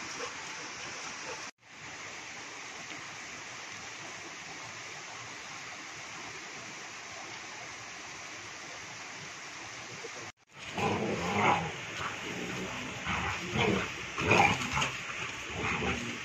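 Steady rush of a shallow river stream, cut off abruptly twice. About two-thirds of the way in, two Rottweilers play-fighting, with irregular growls and scuffling that are the loudest part.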